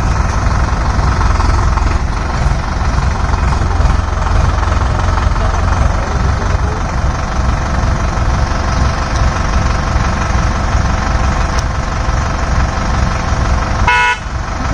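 Sonalika tractor's diesel engine running steadily with a deep, even rumble while the tractor sits stuck in mud, hitched for a tow.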